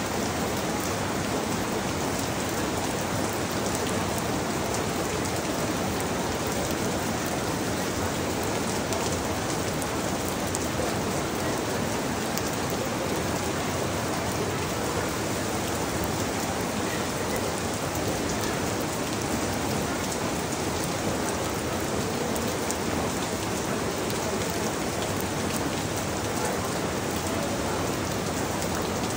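Steady rain falling on the leaves of a mango tree, an even hiss that holds without a break.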